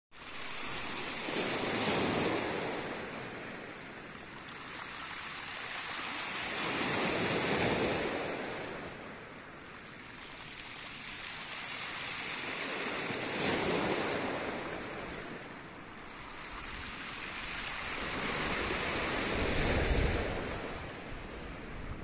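Small sea waves washing in on a pebble beach, each one rising and fading, four times about six seconds apart.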